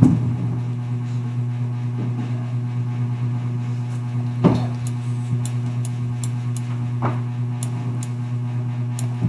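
A steady low electrical hum, with a few short sharp clicks of a computer mouse scattered through the second half.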